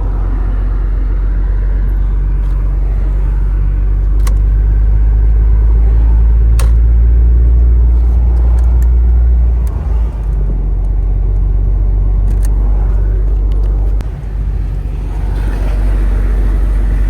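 Steady low drone of a semi-truck's engine and tyres on the road, heard inside the cab while driving, with a few faint sharp clicks. The drone dips briefly twice, about ten and fourteen seconds in.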